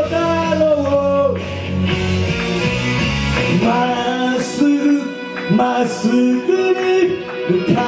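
A man singing into a microphone with instrumental backing, live on stage. His voice holds long notes that slide in pitch, over sustained low accompaniment.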